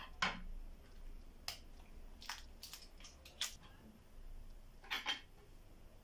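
Shelled hard-boiled eggs being grated on a flat plastic hand grater over a clay dish: about half a dozen short, irregularly spaced scraping strokes and clicks, the first the loudest.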